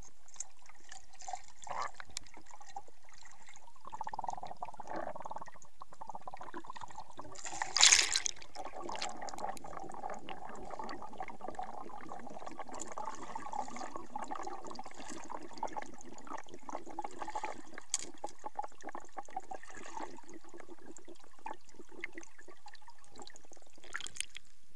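Muffled gurgling and bubbling of lake water heard through a submerged action camera. There is a louder splash about eight seconds in and another brief one near the end as the camera breaks the surface.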